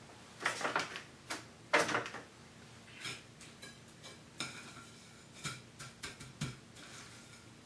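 Food-handling noises on a counter: a few short crinkly, scraping bursts in the first two seconds, then lighter taps and rustles, as a veal cutlet is lifted from an aluminium foil tray of egg wash and pressed into panko breadcrumbs on a plate.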